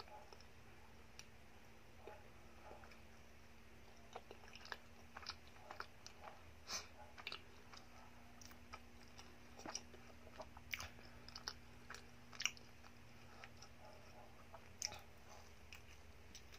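A person chewing a soft, sugar-dusted, cream-filled donut: faint wet mouth clicks and chewing sounds, thickest through the middle, over a low steady hum.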